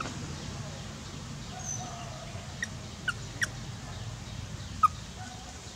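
A few short, sharp, high chirping animal calls, the loudest near the end, over a steady low background hum.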